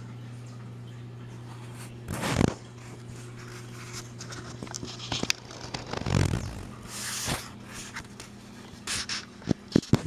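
Handling noise from a handheld camera being moved: rubbing and scraping swooshes, a few sharp clicks near the end, and a low steady hum under the first few seconds.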